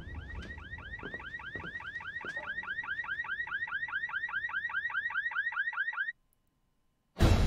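Car alarm sounding: a rapid chirping that sweeps up in pitch about five times a second, slowly growing louder, then cutting off suddenly about six seconds in. Music starts a second later.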